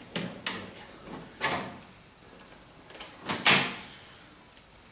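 The top of an Exo Terra glass terrarium being worked loose and lifted off its frame by hand: a handful of sharp knocks and rattles, the loudest pair about three and a half seconds in.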